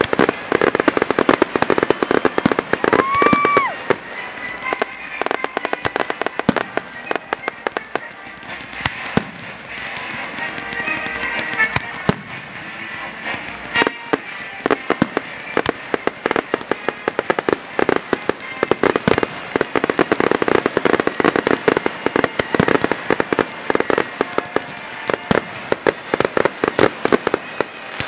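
A fireworks display: a dense, continuous barrage of aerial shell bursts, many bangs a second with crackle between them. A brief high whistle sounds about three seconds in, and its pitch drops at the end.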